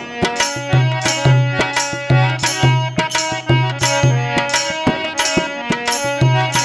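Instrumental break of a Rajasthani Holi folk song: a sustained melody over steady hand-drum strokes, about three a second, with repeated low drum beats.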